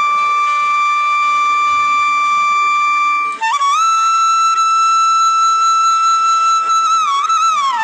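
Instrumental background music: a single melody line of long held notes, broken briefly about three and a half seconds in, moving to a slightly higher held note, and wavering through ornamented bends near the end.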